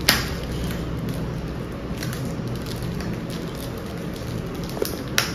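Packaging rustling and crackling as it is opened by hand, with a few sharp crinkles, the loudest at the start and near the end.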